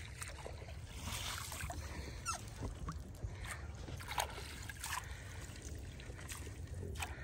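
Water splashing and sloshing around a small fishing boat, with a scattering of short, sharp splashes.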